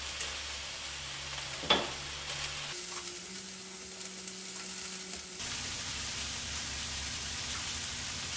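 Vegetables and mushrooms sizzling in a hot stainless frying pan as they are stirred with a wooden spoon, with one sharp knock against the pan about two seconds in.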